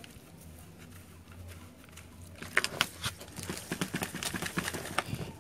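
Plastic flower pot being shaken and rocked by hand to settle the loose potting mix around an adenium's roots. Quiet at first, then from about halfway a run of irregular scratchy crackles and small knocks.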